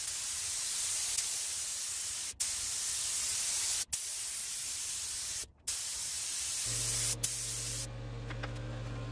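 Air-fed gravity-cup paint spray gun hissing steadily as it lays down a second coat of sealer, cutting out briefly about two and a half, four and five and a half seconds in as the trigger is released between passes.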